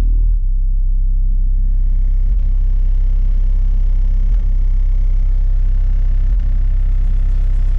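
Car-audio subwoofer in a custom trunk enclosure playing bass-heavy music very loud: a deep, steady bass with a brief break about every two seconds.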